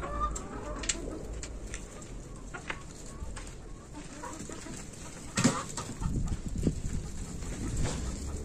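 Chickens clucking on and off, with footsteps on dry dirt and the rustle of a plastic basket being set down near the end.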